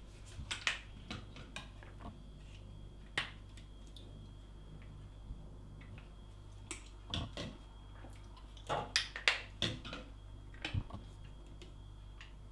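Small clicks, taps and short rattles of supplement containers and their contents being handled, lids and capsules knocking. The busiest, loudest cluster of rattles comes about nine seconds in.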